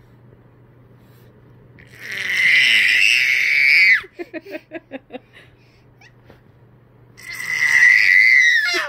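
A baby squealing with delight twice, each time a long, loud, very high-pitched squeal, with a quick run of short giggles just after the first. The second squeal drops in pitch as it ends.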